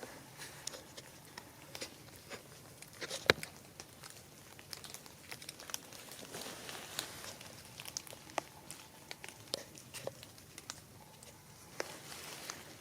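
Light patter and soft rustling with many scattered small ticks, and one sharper tap a little over three seconds in.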